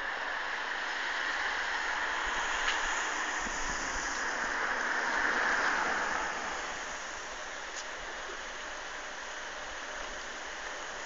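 Floodwater rushing across a road, a steady hiss that swells for a few seconds in the first half and then settles.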